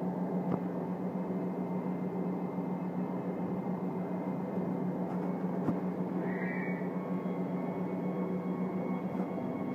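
4000-series electric train standing at the platform, its onboard equipment giving off a steady low hum with a faint higher whine above it. A brief high blip about six and a half seconds in.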